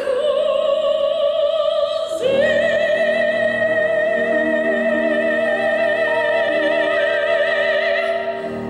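Operatic soprano singing with wide vibrato over piano accompaniment: one long held note, a brief break about two seconds in, then a second long held note with piano chords underneath. The voice stops near the end, leaving the piano.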